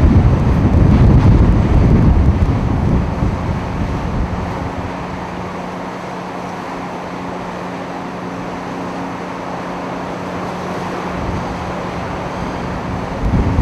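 Wind buffeting the microphone, heavy for the first few seconds and then easing. Once it calms, a steady low hum runs underneath, and the gusts pick up again near the end.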